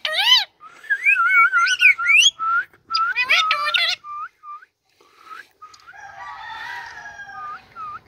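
Indian ringneck parakeet calling: a run of whistled, warbling calls that glide up and down, then a few short chirps, and softer chatter near the end.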